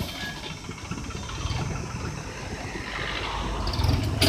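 Mahindra tractor's diesel engine running, working a rear-mounted loader, growing louder in the last second or so.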